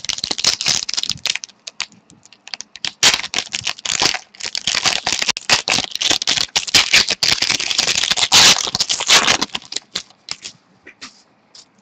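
Foil trading-card pack wrapper crinkling and tearing as it is ripped open by hand: dense rapid crackling in several spells, thinning to scattered clicks near the end.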